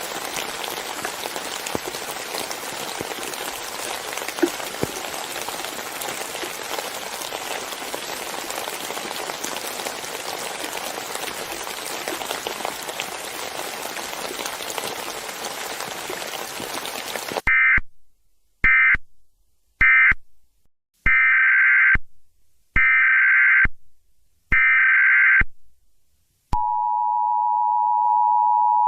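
Steady rain for about seventeen seconds, then it cuts off abruptly. A run of short, loud, screeching digital data bursts follows, the EAS SAME header. Near the end the EAS attention signal, two steady tones sounded together, comes on and holds.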